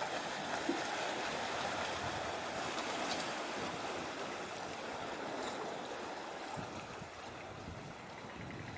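Steady rushing noise of wind and sea water, with no distinct engine tone, easing off a little over the last few seconds.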